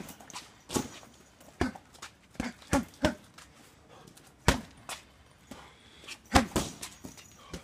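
Punches and kicks thudding into a heavy punching bag in an uneven string of about ten strikes, several landing in quick pairs. Many strikes come with a short, sharp grunt from the fighter.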